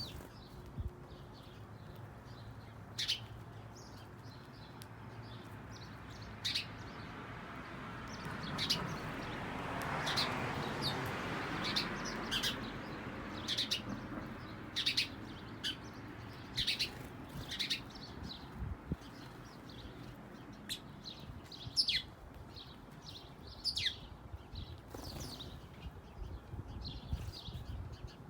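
Birds chirping: short, sharp, falling chirps, one every second or so, coming more often through the middle and later part. A broad rushing noise swells and fades over a few seconds about a third of the way in.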